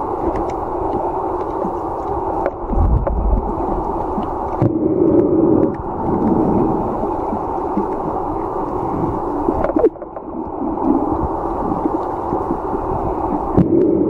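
Muffled, rushing water noise picked up by an underwater camera, with scattered faint clicks. The noise changes abruptly a few times.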